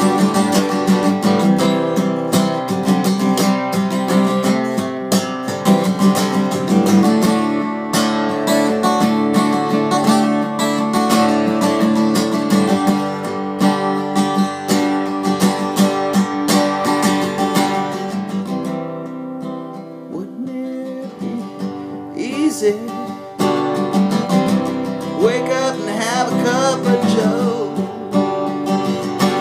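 Acoustic guitar strumming an instrumental break of a folk-country song. A wavering, bending melody line joins over the strumming for the last few seconds.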